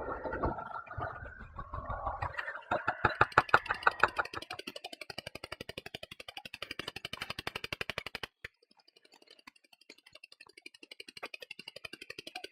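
Ultrasound detector output: ultrasonic sound made audible as a fast, even train of clicks, louder at first and then fainter, with a short break about two-thirds of the way in. Before the clicks begin there is a low, rough rumbling noise.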